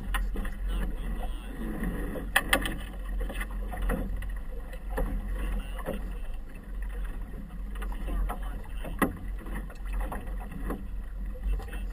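Small boat moving across choppy river water: waves slap and splash irregularly against the hull, the loudest hits about two and a half seconds in and about nine seconds in, over a steady low rumble.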